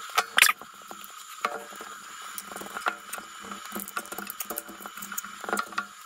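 Rubber protective boot being pulled and peeled off the plastic control box of a Tesla Mobile Connector by hand: rubber rubbing and scraping against the housing where it is glued, in many small irregular clicks and scratches.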